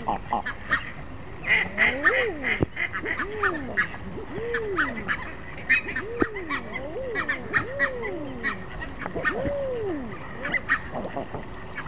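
Common eider drakes cooing: drawn-out calls, each rising then falling in pitch and about a second long, every second or two. A busy chatter of short, high calls from other waterfowl runs underneath.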